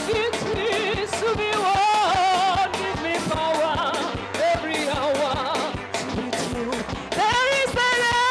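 Live worship music: a voice singing a sustained melody with wide vibrato over a band with a steady drum beat.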